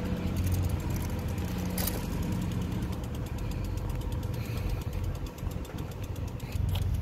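A steady low engine drone with a fast, faint ticking over it.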